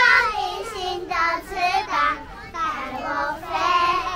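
Young children's high voices singing a song together.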